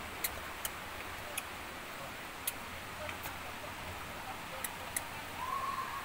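Steady rushing hiss of outdoor ambience with scattered sharp clicks at irregular intervals, and a short high call near the end.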